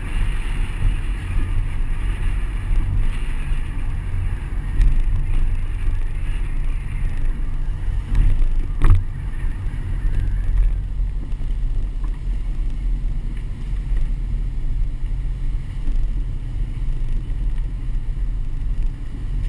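Car driving slowly, its engine and tyres giving a steady low rumble, with wind noise on the microphone of a camera mounted outside the car. A single short knock about nine seconds in.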